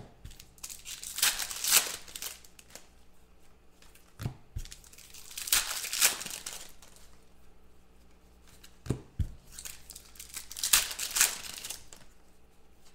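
Foil trading-card packs torn open and crinkled by hand, in three bursts of tearing a few seconds apart. A few short knocks come in between.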